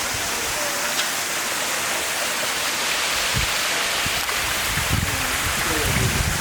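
Steady rush of running and falling water from a waterfall and the streams around it. Wind buffets the microphone briefly about three and a half seconds in and again near the end.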